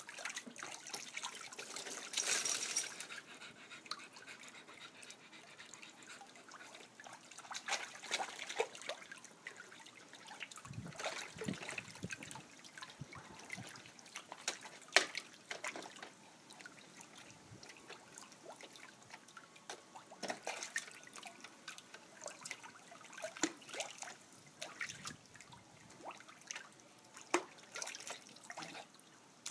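Water splashing and sloshing as a dog paddles in a shallow plastic kiddie pool, over the steady trickle of a garden hose running into the water. A louder burst of splashing comes about two seconds in, then scattered smaller splashes and drips.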